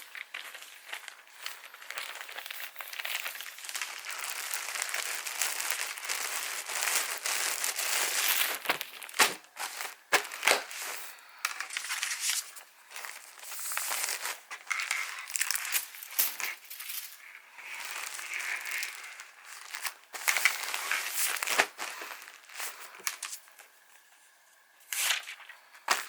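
Packaging material being handled while orders are packed: irregular crinkling and rustling, with a few sharp snaps and short pauses.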